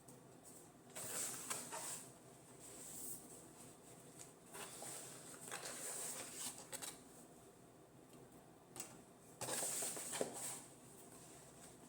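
Faint rustling and handling noises in a few short bursts, with small clicks, as packaging and the items of a reed diffuser set are handled.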